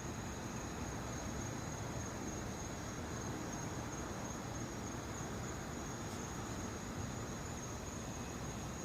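Quiet, steady outdoor background hiss with a thin, continuous high-pitched tone running through it; the rumbling has stopped.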